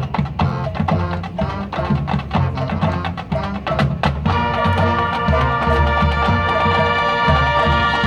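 High school marching band playing: a quick run of drum and percussion strikes, then about four seconds in the band comes in on a long held chord over the drums.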